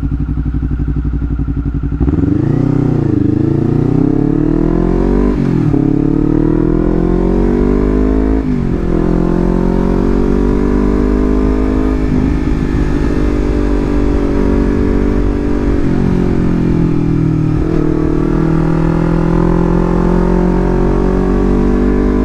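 Honda CBR250RR engine through a Leovince GP Corsa full-system exhaust, idling for about two seconds and then revved with partial throttle. The revs rise and drop a few times, then hold at a raised steady speed with a few brief dips.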